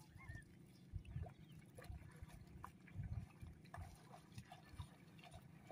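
Faint splashing and squelching of bare feet walking through shallow seawater and wet seaweed, as scattered soft clicks and splashes, over a low rumble of wind on the microphone.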